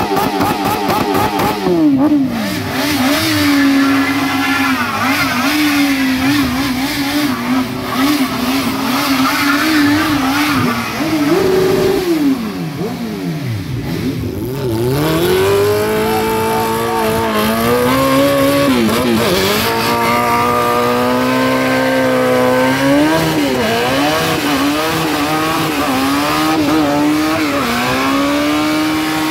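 Motorcycle engines revving hard during burnouts, the pitch swinging up and down over and over as the rear tyre spins; around twelve seconds in the revs drop lower and quieter for a few seconds before climbing again.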